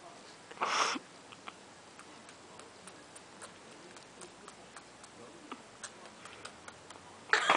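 Quiet handling of a Chihuahua wrapped in a blanket: a short breathy hiss about a second in, then faint scattered clicks and soft rustling.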